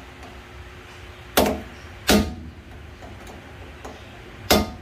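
Hammer striking a flat-blade screwdriver set against a rear wheel hub nut, staking the nut's collar to lock it: three sharp metallic blows, about a second and a half in, just after two seconds, and near the end.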